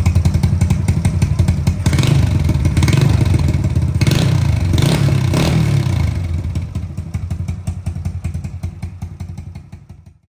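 Honda Astrea Grand 100cc four-stroke single-cylinder engine running through its Sebring exhaust with a fast, even putter. It picks up a little about two seconds in and takes a few short throttle blips near the middle, then fades out near the end.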